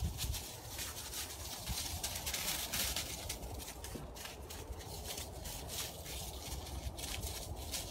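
Two Shetland sheepdog puppies scampering over dry fallen leaves and a thin layer of snow, their paws rustling and crunching the leaves in many short, uneven crackles.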